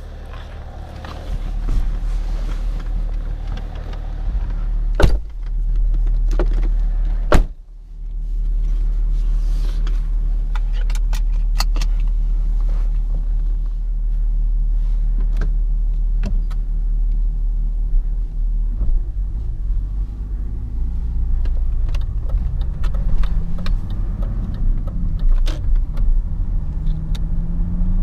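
BMW 530d E39's straight-six turbodiesel idling steadily, with two sharp knocks about five and seven seconds in as the driver's door is shut. From about nineteen seconds in, the engine note rises in steps as the car pulls away and gathers speed.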